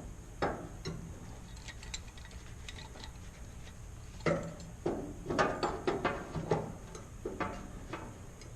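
Scattered light clanks and knocks of metal parts and tools being handled at a workbench, several in quick succession about halfway through, over a steady low hum.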